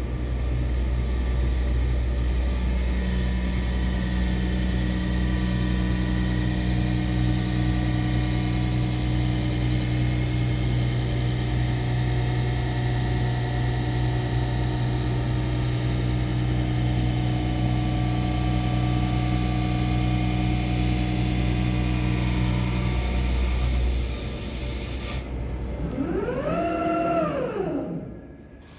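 Diamond-cut wheel lathe machining the face of a spinning alloy wheel, a steady hum and hiss. About 24 seconds in, the hum and hiss drop away, and near the end a short tone rises and falls as the machine winds down.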